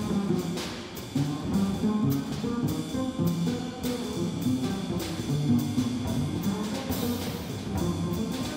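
Live jazz from a rhythm section of acoustic piano, upright bass and drum kit, with the ride cymbal keeping a steady beat. A cymbal crash rings out about seven seconds in.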